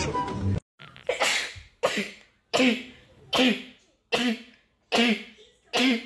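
A woman's rapid fit of short, stifled sneezes, muffled behind her hand: seven in about five seconds, one roughly every three-quarters of a second.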